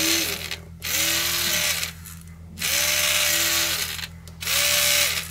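Homemade battery mini drill's small DC motor, fitted with a bent-wire whisk, switched on and off in four short runs. Each run spins up to a steady whirring pitch and winds down as the switch is released.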